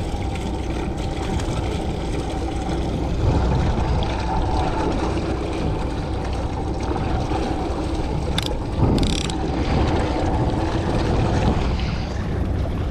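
A boat's Yamaha outboard motor running steadily as the boat moves, with water and wind on the hull, together with the mechanical clicking of a conventional fishing reel being worked by hand. One sharper click comes a little past halfway, followed by a brief burst of noise.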